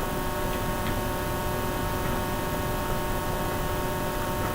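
Steady electrical hum with a few faint constant tones, an indoor background with no change through the pause.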